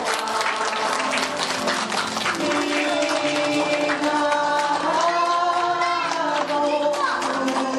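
Music with singing, and clapping scattered through it.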